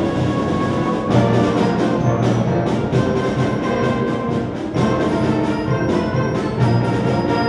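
Symphonic wind band playing a loud passage: sustained brass and woodwind chords punctuated by repeated percussion accents.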